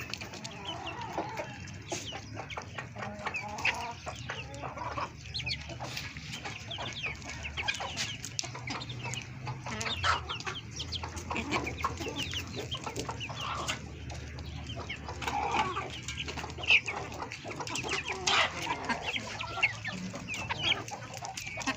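Chickens clucking, many short calls overlapping and going on throughout, over a low steady hum.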